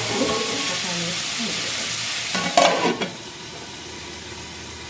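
Chicken and masala sizzling as they fry in a kadai, with a spatula scraping and clattering against the pan about two and a half seconds in. The sizzle turns quieter after about three seconds.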